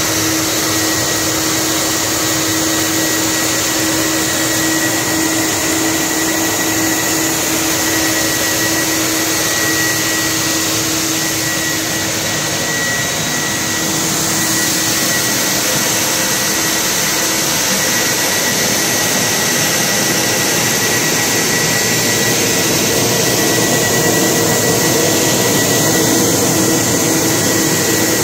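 Molded floor-mat cleaning machine running steadily as a wet mat passes through its brushes: a loud, even whirring with a low hum and a thin, high, steady whine.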